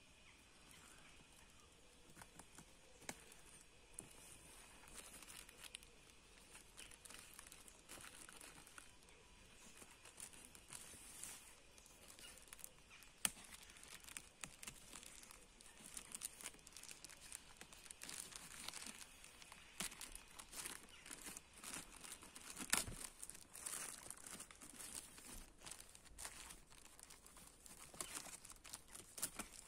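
Plastic wrapping and tape on a parcel crinkling and tearing as hands pick at them: faint, irregular crackles and rustles.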